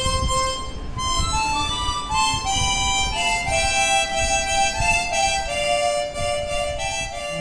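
Several harmonicas playing a slow melody together, one held note after another.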